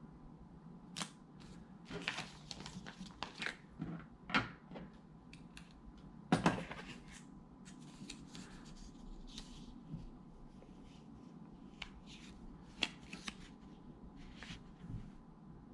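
Small plastic packaging bags and a sheet of double-sided adhesive pads handled by hand: crinkling and rustling with scattered light clicks, the loudest burst a little past six seconds in.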